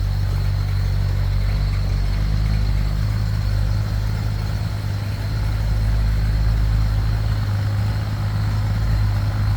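Bombardier snow bus engine running steadily at low revs as the machine creeps slowly into the shop.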